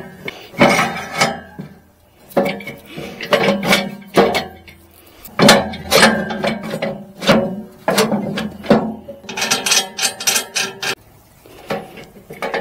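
Irregular metal clanks and knocks, some in quick runs with short ringing tails: steel clamp-on pallet forks being handled and fitted onto a tractor loader bucket.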